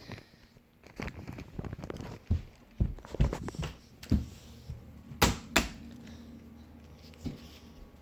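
Handling noises: irregular knocks, thuds and rustling, with two sharp clicks about five seconds in.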